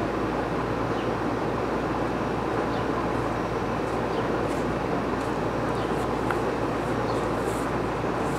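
Steady rushing outdoor background noise, with a few faint ticks.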